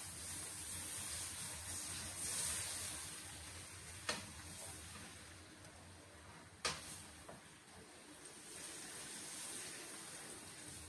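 Butter melting in an aluminium wok over a gas flame, a steady soft sizzling hiss, with a metal ladle clinking against the pan twice, about four seconds in and again a few seconds later.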